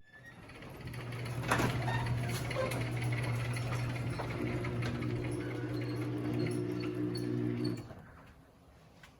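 Electric garage door opener running for about eight seconds: a steady motor hum with the door rattling along its track, stopping abruptly near the end.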